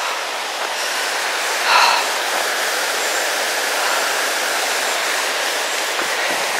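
River rushing over rocks and boulders: a steady, even roar of moving water. A brief louder sound stands out about two seconds in.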